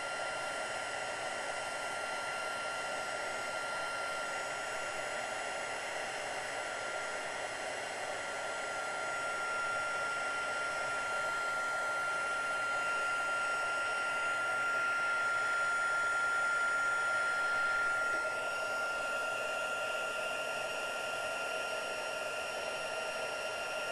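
Heat embossing tool (heat gun) running steadily, its fan blowing hot air with a steady whine over a rushing noise, melting white embossing powder on paper. The tone shifts slightly about three-quarters of the way through.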